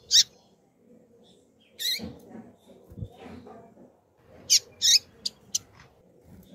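Female double-collared seedeater (coleiro) giving short, sharp contact chirps: one right at the start, another near two seconds, then a quick pair just after four and a half seconds followed by two thin ticks.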